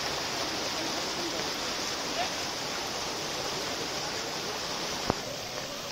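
Muddy floodwater rushing in a steady torrent past the broken edge of a washed-out concrete bridge. A single sharp click stands out about five seconds in.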